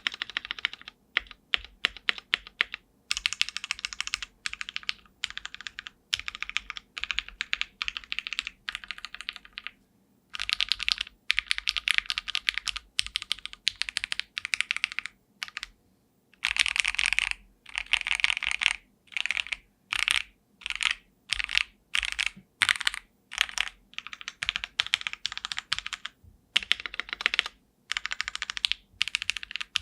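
Typing on a mechanical keyboard fitted with CXA-profile keycaps of an ABS and PBT blend: fast runs of keystrokes broken by short pauses, with a stretch of separate, evenly paced key presses in the middle.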